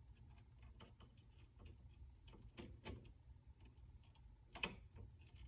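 Near silence with faint, irregular small clicks and taps, a few a second, and one sharper click about four and a half seconds in, over a low hum.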